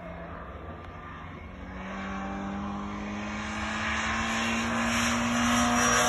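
Jaguar E-type racing car engine, faint at first, then growing steadily louder with its note rising slowly in pitch as it accelerates, from about a second and a half in.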